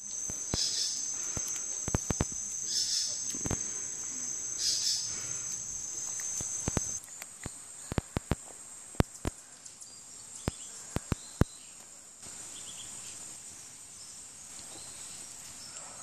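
Insects trilling steadily in a high pitch, louder for the first seven seconds and fainter after that. Sharp clicks and knocks sound here and there through the first twelve seconds.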